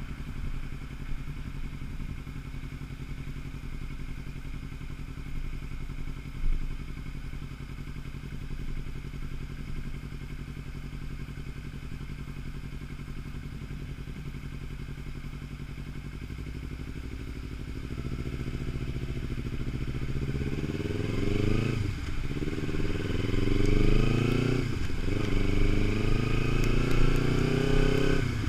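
Kawasaki Ninja 300's 296 cc parallel-twin engine running at low, steady revs in slow traffic, with a single knock about six seconds in. About two-thirds of the way through it pulls away, the revs rising and dropping back twice as it shifts up through the gears.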